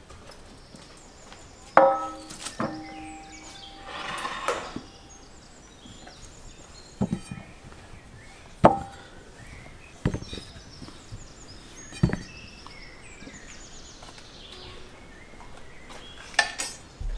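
A metal pan set down on a wooden table with a ringing clank, then potatoes dropped into the metal pan one at a time, a knock every second or two.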